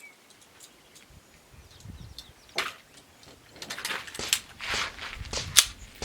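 Footsteps: a person walking in a steady run of short, crisp steps, starting a little over halfway through, after a quieter stretch with one knock.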